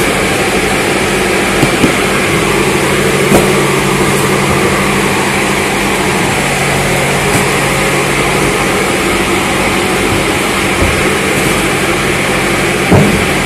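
Steady machine drone, a constant low hum with a fixed pitch, with a few dull knocks of cardboard cartons being handled, the loudest near the end.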